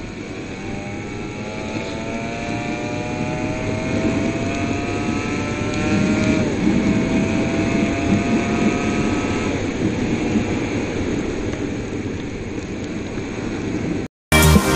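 Suzuki motorcycle engine accelerating, its pitch rising steadily, dropping sharply about six seconds in as it shifts up, then rising again, over steady wind and tyre noise on a wet road. Music comes in at the very end.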